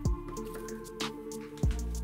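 Background music: sustained chord tones over a beat of kick-drum and cymbal hits.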